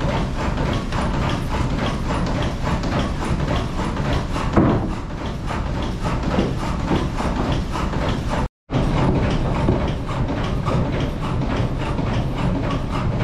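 Old-style sawmill running: the saw and log-carriage machinery clatter in a fast, steady mechanical rhythm as a timber is sawn, with one louder knock about four seconds in. The sound cuts out completely for a moment about two-thirds of the way through.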